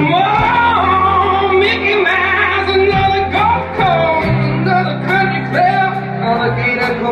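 Live band playing: a singer's high, sliding vocal line over electric guitar, bass and drums, with regular cymbal hits.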